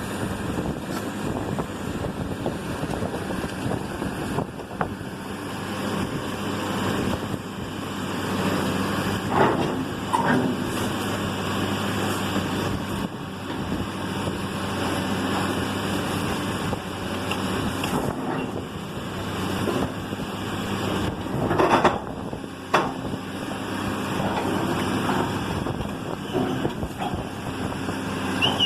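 Demolition machinery's engine running steadily, with a few sharp cracks and crashes of the house being torn down, the loudest about two-thirds of the way through.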